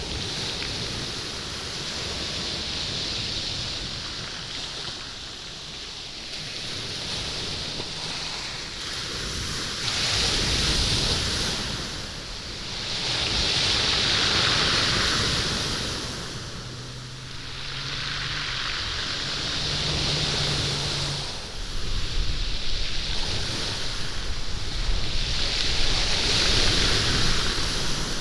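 Waves surging up a stony beach and drawing back, rolling and rattling the stones, in swells every few seconds.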